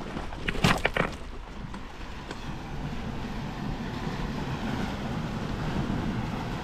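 Steady wind and sea-wave noise, with wind buffeting the microphone and growing a little stronger in the second half. A quick cluster of sharp clicks about a second in.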